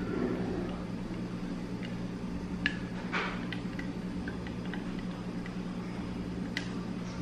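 Steady low mechanical hum of a kitchen appliance. Over it come a few light clicks and a short scrape as a silicone spatula works against a glass measuring jug while beaten egg batter is poured into a frying pan.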